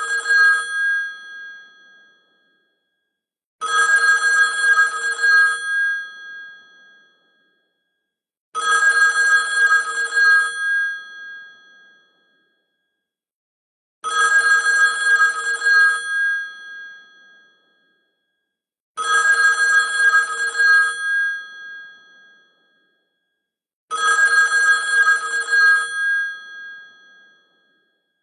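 Classic telephone bell ringtone: an old-style phone bell trilling rapidly in rings of about two seconds, each fading off, repeating about every five seconds. Five full rings follow the tail of one already sounding at the start.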